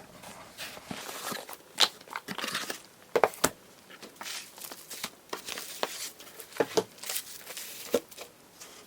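Packaging handled and opened by hand: irregular crinkling and rustling with sharp clicks and taps, the loudest about two and three and a half seconds in.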